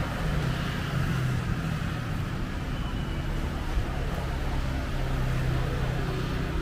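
Steady low rumble of street background noise, like road traffic.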